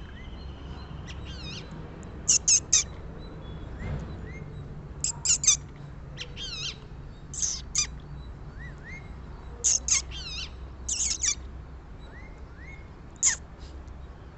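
Rose-ringed parakeets calling: short, shrill screeches in quick runs of two or three, repeated every few seconds, with fainter wavering calls in between.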